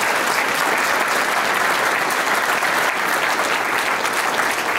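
Large audience applauding, a dense, steady clapping that holds at the same strength throughout.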